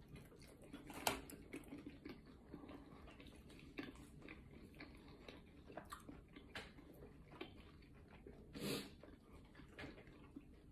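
A person chewing a bite of pizza with the mouth closed: faint, scattered mouth clicks and squishes, with a sharper click about a second in and a short, louder puff of noise near the end.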